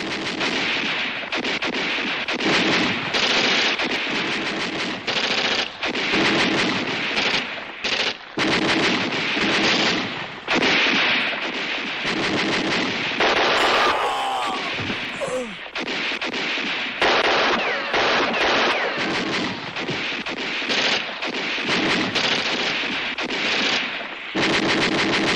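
Rapid battle gunfire: machine-gun bursts and rifle shots crackling almost without pause, thinning out briefly about halfway through.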